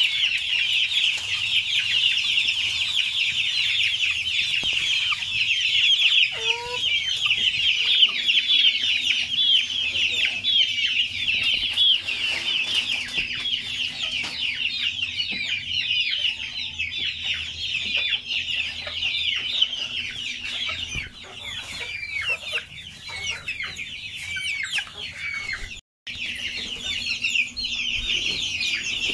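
A flock of young gamefowl chicks peeping without a break, many high chirps overlapping. The sound cuts out for a moment near the end.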